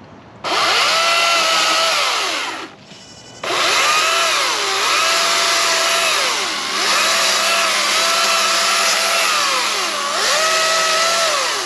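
Greenworks Pro 60V cordless electric chainsaw running: the motor whines up, runs about two seconds and stops, then starts again and keeps running. Its pitch sags and recovers about three times as the chain bites into tree limbs.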